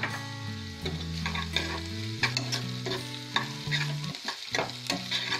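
Long steel spoon stirring sliced onions and chopped ginger frying in oil in a steel kadai: a steady sizzle with repeated scrapes and clinks of the spoon against the pan, about two or three a second.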